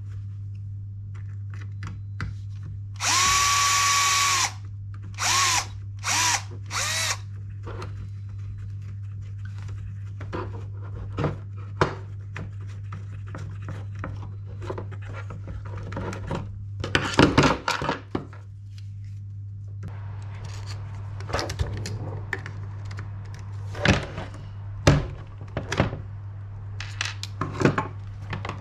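Small cordless electric screwdriver running once for about a second and a half, then in three short bursts, driving or backing out screws on the RC buggy's parts. Scattered small clicks and knocks of parts and screws being handled follow.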